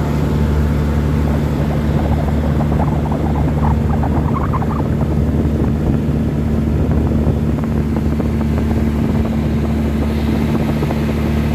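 Large outdoor sound system's speakers putting out a loud, steady low bass drone during a sound check.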